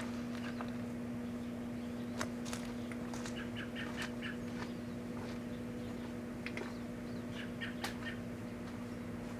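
Microwave oven running with a steady hum, with scattered sharp crackles and a few short squeaky chirps from the firework and lighter heating inside it.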